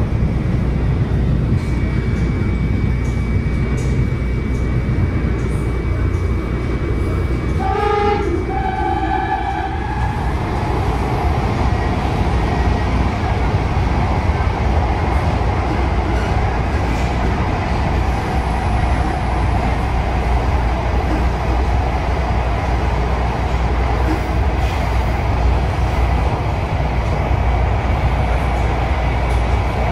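MARTA rapid-transit train running along the track with a steady, loud rumble. A short pitched tone sounds about eight seconds in.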